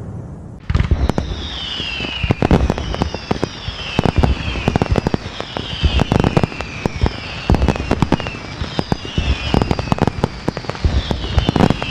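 Fireworks going off: a dense run of sharp bangs and crackles that starts suddenly about half a second in, with a falling whistle repeating every one and a half to two seconds.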